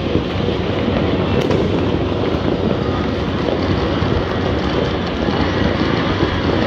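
Steady din of many distant fireworks and firecrackers going off at once across a city, a dense crackling rumble with no single bang standing out.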